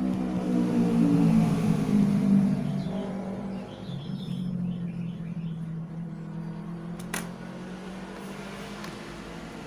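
A motor vehicle's engine hum swells over the first few seconds, drops slightly in pitch and fades, as if it is passing by. A single sharp click comes about seven seconds in.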